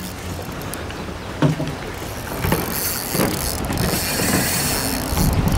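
Spinning fishing reel being cranked, a steady mechanical whirring of the reel that grows louder from about three seconds in.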